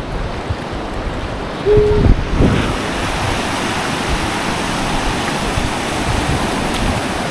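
Small surf waves washing up onto a sandy beach: a steady foamy wash and hiss of shallow water over sand. A short steady tone and a brief burst of low rumble come about two seconds in.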